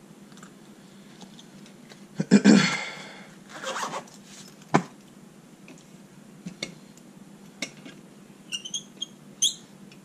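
Handling noises on a workbench: a loud scraping rustle and a second shorter one as a lock-pick case is closed and moved, a sharp clack about five seconds in, then light clicks and a few short metallic squeaks near the end as a lock is clamped into a ball-joint lock-picking vise.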